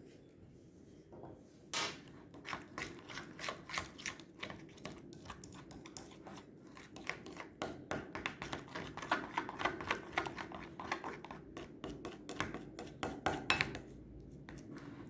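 Thick slime glue being stirred in a bowl to mix in water colour: quick repeated scraping and clicking strokes of the stirrer against the bowl, several a second. It starts about two seconds in and stops shortly before the end.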